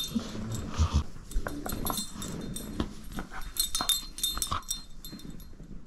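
Shepherd-mix dog playing with a toy: a busy run of scuffling, knocks and clicks, mixed with short dog noises.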